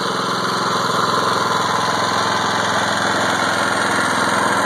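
Harbor Freight Predator 173 cc single-cylinder four-stroke engine running steadily, belt-driving a car alternator that is pulling almost no load.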